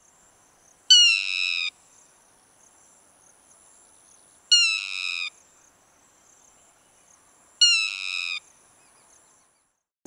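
Yellow-wattled lapwing (Vanellus malabaricus) calling: three separate calls, each under a second and dropping slightly in pitch, about three seconds apart.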